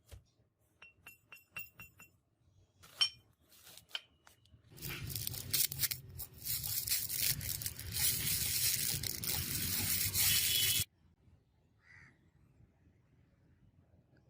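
Several light metallic clinks, then about six seconds of harsh abrasive noise of iron being worked by an abrasive tool, which stops suddenly.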